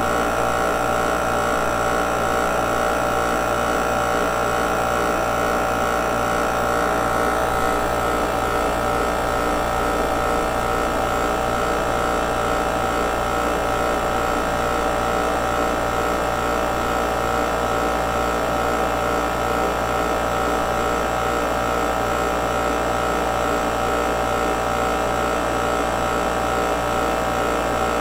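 Mastercool 69110 refrigerant recovery machine running steadily, its compressor drawing refrigerant out of a car's A/C system into the recovery tank. It makes a steady hum, with a low, fast pulsing underneath.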